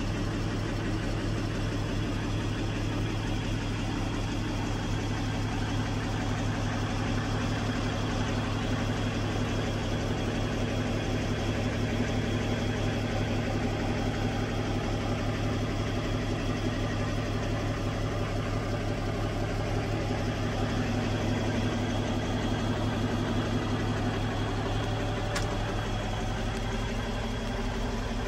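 Mack E6 350 four-valve inline-six diesel engine idling steadily, heard from inside the truck's cab. There is a faint click near the end.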